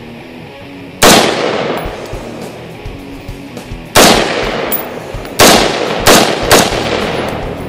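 Five gunshots, each with a long echoing tail. One comes about a second in, one about four seconds in, and three come close together near the end.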